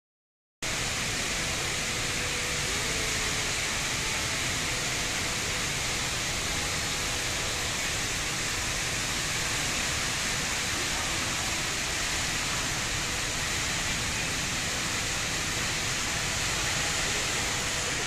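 The HSBC Rain Vortex, a very tall indoor waterfall, pouring down through the roof into its basin: a steady, unbroken rush of falling water that starts about half a second in.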